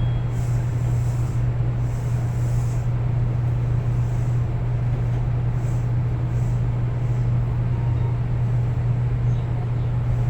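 JR Kyushu 813 series electric train heard from inside, a steady low hum at a constant pitch over an even rumble, with no change in level.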